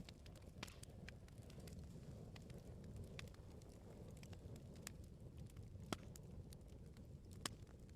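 Wood bonfire burning: a soft low rumble of flames with scattered sharp crackles and pops from the firewood, two of them louder, just before 6 seconds and about 7.5 seconds in.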